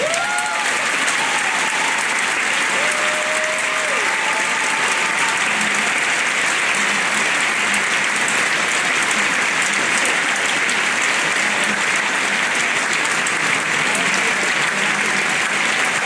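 Large audience applauding steadily, with a few cheering whoops over it in the first few seconds.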